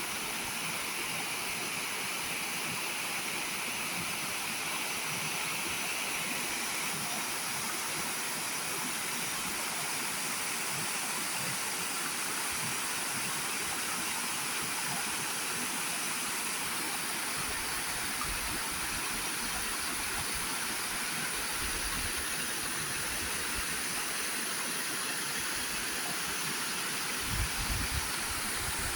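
Waterfall: a steady rush of falling water, with low rumbling bumps on the microphone in the second half, the loudest near the end.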